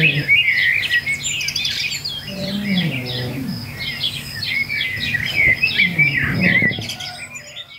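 Birds chirping and warbling in a busy, continuous chorus. A lower pitched sound glides downward beneath it twice, about three seconds in and again about six seconds in.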